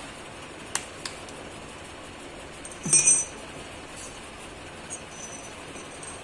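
Small metal clinks and taps: two sharp clicks about a second in, then a louder clink with a brief high ring about three seconds in, and a fainter ring about five seconds in, over a steady background hiss.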